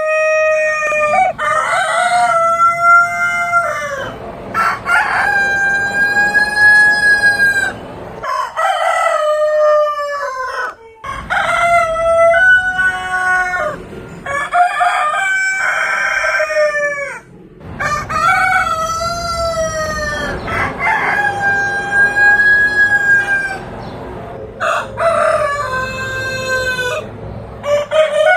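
Rooster crowing over and over, about nine long cock-a-doodle-doo calls of a few seconds each, some running into one another.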